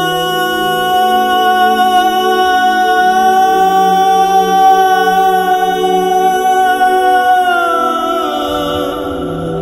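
Arabic devotional nasheed sung a cappella: one long held high note over layered lower voices, the note sliding down about eight seconds in.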